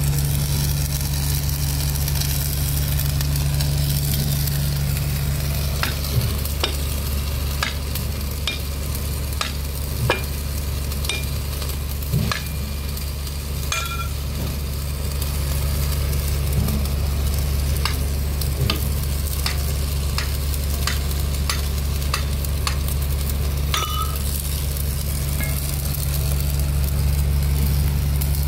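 Heavy diesel engine running steadily with a low hum and a hiss. Scattered sharp ticks come through it for a stretch in the middle.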